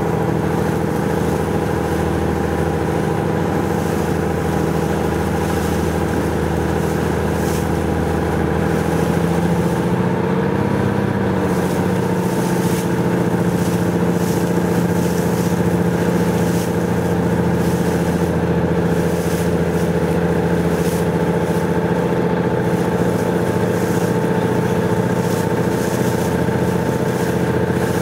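Motorboat engine running steadily, its pitch rising a little about ten seconds in.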